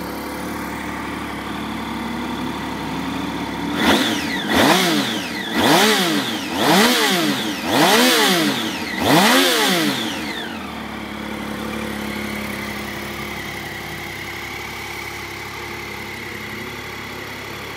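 2010 Triumph Street Triple's 675 cc inline three-cylinder engine idling, then blipped six times in quick succession, each rev climbing and falling back, before settling to a steady idle again.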